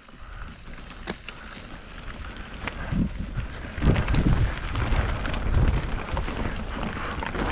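Mountain bike rolling over a rocky forest trail: tyres crunching on stones, with knocks and rattles from the bike over bumps. It gets louder and bumpier from about four seconds in.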